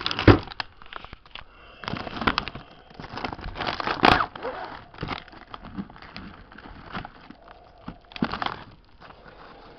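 Plastic wrapper of a family-size Oreo pack crinkling and crackling in irregular bursts as it is handled, with a few sharp clicks.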